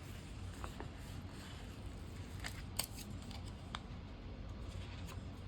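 A few light, separate clicks and snips from handling stickers and paper on a planner page, over a steady low room hum.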